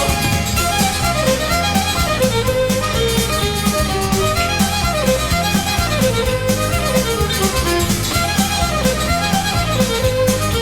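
Instrumental break in a song: a lead melody over bass and drums with a steady beat.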